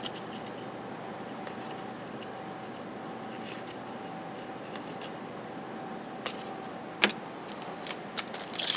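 Trading cards being handled: faint sliding and ticking, sharp clicks about six and seven seconds in, and busier card and wrapper rustling starting near the end. A steady faint hum lies underneath.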